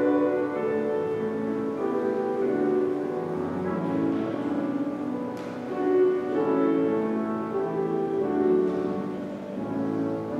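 Slow instrumental music on a keyboard instrument, playing held chords with no singing.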